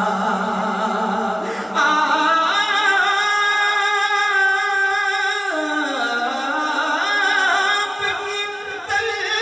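Male voice singing a naat, an Urdu devotional poem in praise of the Prophet, in long held melismatic notes with a wavering ornament, stepping down in pitch about halfway through.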